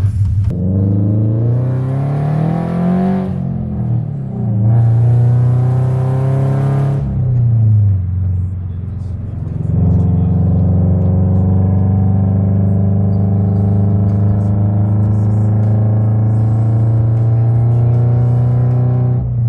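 Subaru BRZ's 2.0-litre flat-four engine accelerating hard: it revs up with a loud intake rush, drops briefly at a gear change, and pulls hard again. Then it eases off and settles into a steady drone at cruising speed.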